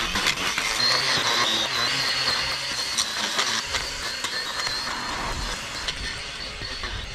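Powered lawn edger running with a steady high whine, its spinning blade cutting grass along the edge of a concrete footpath, with many small ticks of grit and debris.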